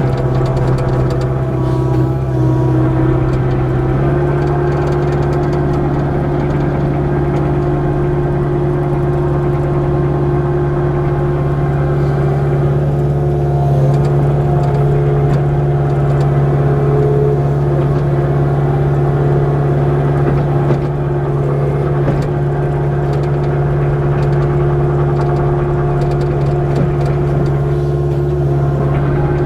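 Kubota KX057-4 mini excavator's diesel engine running steadily while working, stepping up slightly in speed about four seconds in.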